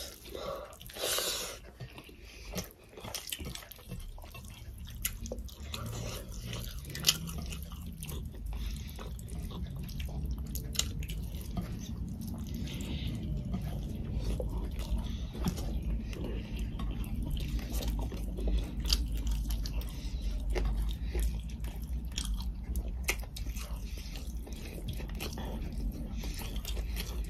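Close-up eating sounds of two people eating rice and chicken curry by hand: chewing, lip smacks and small wet clicks as fingers work the rice on the plates, over a low steady hum.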